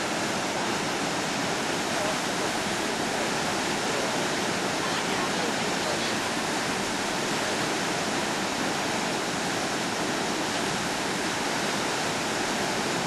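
Pisew Falls, a broad waterfall on the Grass River in heavy flow: a steady, unbroken rush of falling and churning white water.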